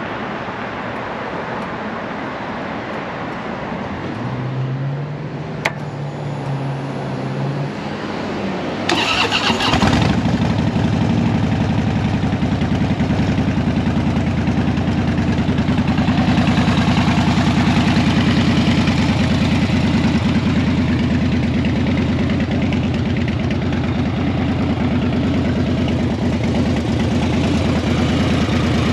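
2013 Harley-Davidson Dyna Wide Glide's Twin Cam 103 V-twin, fitted with a Samson exhaust, being started. After a short whir and a click, the starter cranks for about a second, the engine catches about ten seconds in, and it then idles steadily with a low, even beat.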